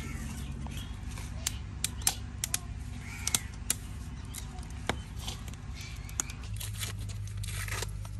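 Scattered sharp clicks and taps at irregular intervals over a steady low hum, which grows a little stronger about six and a half seconds in.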